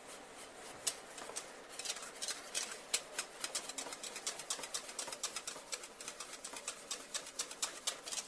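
Whisk beating egg yolks and sugar in a stainless-steel bowl over a bain-marie, its wires ticking quickly and irregularly against the metal.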